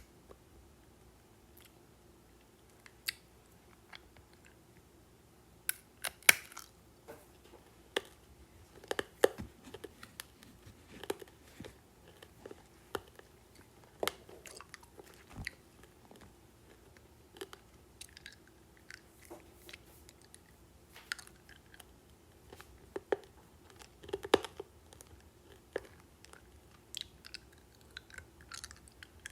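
Close-miked chewing and biting of candy: irregular crunches and small mouth clicks, with sharper crunches every second or two in places.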